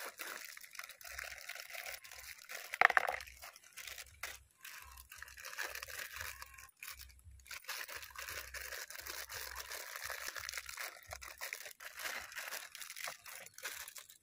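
Crinkling plastic instant-noodle wrappers being opened and handled, with dry noodle cakes tipped into a plastic bowl. There is one louder crackle about three seconds in.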